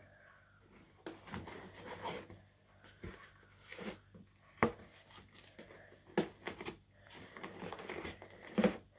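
Packaging being torn and crumpled while a box of old locks is unpacked, with irregular rustling and scattered sharp knocks and clicks, the loudest about halfway through.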